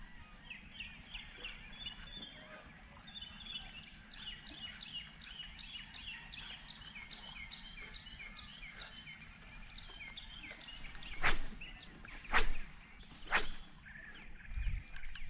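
Birds chirping in quick, repeated short notes. Near the end come three loud, short rushes of noise about a second apart.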